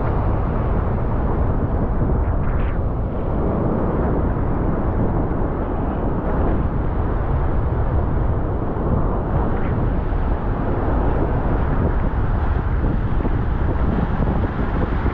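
Wind buffeting the microphone over the steady rush of breaking surf, an even, unbroken noise.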